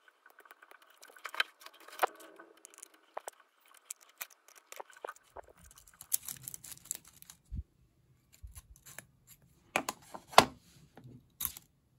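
Small irregular clicks and scrapes of a toothpick and steel tweezers working inside a fountain-pen barrel and tapping on a plastic tray, as crumbled pieces of the hardened old ink sac are picked out. The clicks come sporadically, with the loudest few near the end, and a faint low hum comes in about halfway through.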